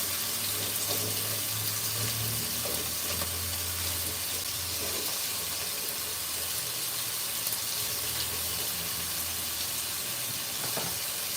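Potato and carrot pieces frying in hot oil, a steady sizzling hiss.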